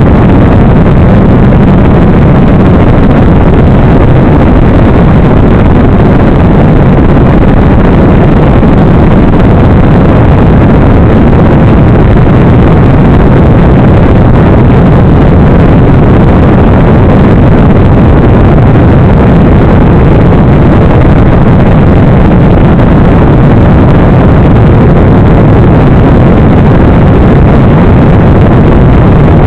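Loud, steady, distorted rush of wind and motor noise picked up by the onboard microphone of a radio-controlled plane in flight.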